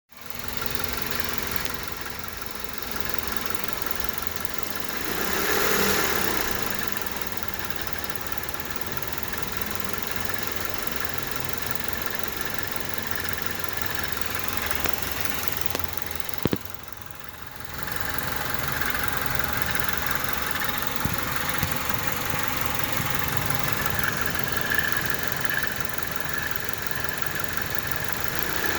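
1998 Honda Civic four-cylinder engine idling with a strange noise from the alternator area, which the owner suspects is a failing alternator pulley or the alternator itself. The sound drops briefly a little past halfway.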